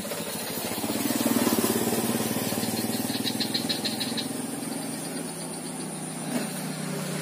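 A motor vehicle engine runs nearby. Its hum swells about a second in and then eases off. A short burst of rapid high ticks comes about three seconds in.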